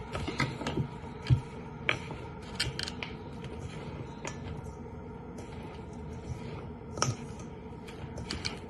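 Hands mixing and squeezing cookie dough in a bowl: scattered soft taps and clicks at irregular intervals over a steady low hum.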